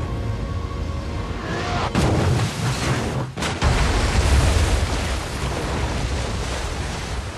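Film sound effects of a B-24 bomber under fire: a steady low rumble with explosions from anti-aircraft fire, a heavy blast about two seconds in and another sharp hit about a second and a half later. Faint tense music fades out near the first blast.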